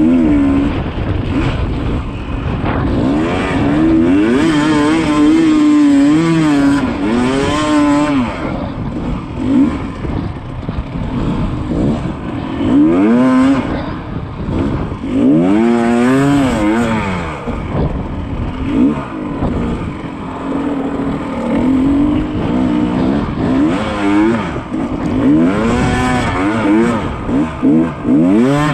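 Yamaha YZ250 two-stroke dirt bike engine under hard riding, its pitch climbing and dropping again and again every second or two as the throttle is opened and rolled off.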